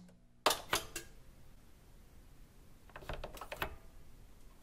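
Sharp clicking sound effects of an animated intro title card: three clicks in the first second, then a quick run of several clicks about three seconds in.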